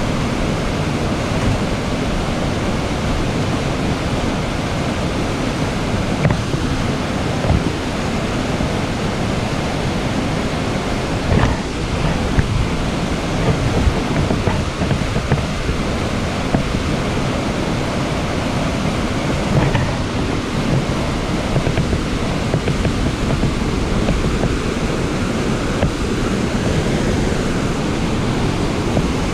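Steady rushing noise of the Durango & Silverton narrow-gauge steam train running, heard from aboard, with wind on the microphone and a few brief knocks.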